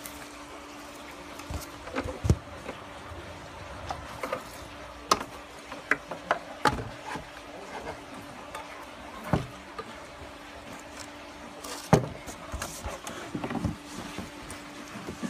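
Handling noise: scattered knocks and taps as the homemade wooden, fibreglass-covered boat hull and its engine mount are touched and moved, over a faint steady hum.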